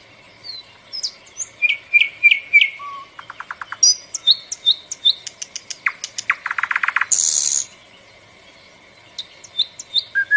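Bulbul singing a varied song of short whistled notes and chirps, with fast rattling trills about six seconds in and a brief harsh buzzy note just after, then a pause and a few more short notes near the end.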